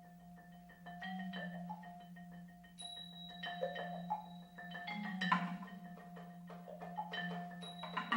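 Mallet percussion music: a run of separately struck notes that ring briefly, in an uneven rhythm, over a steady low hum.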